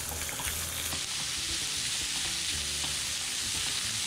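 Ground meat sizzling steadily in a hot nonstick frying pan as it is stir-fried, with a few light taps and scrapes of the spatula against the pan.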